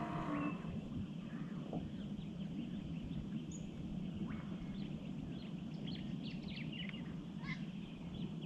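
Outdoor ambience of birds chirping and calling in short, scattered notes over a steady low hum.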